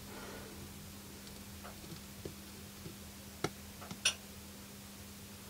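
A few faint ticks, then two sharp clicks about three and a half and four seconds in, over a faint steady electrical hum from the powered thermostat circuit on the bench.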